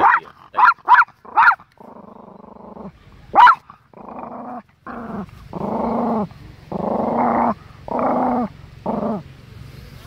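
Chihuahua growling and barking angrily at another dog. It gives three quick sharp yaps about half a second in and another at about three and a half seconds, and between and after them a run of low growls, each lasting about half a second.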